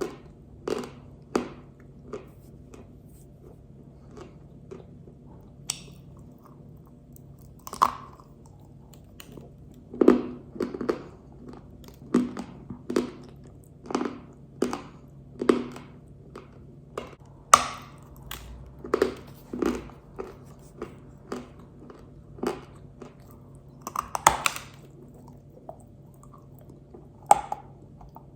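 Pink Uzbek edible clay crunched and chewed close to the microphone: separate sharp, dry crunches at irregular intervals, often about one a second, with a few short pauses between bites.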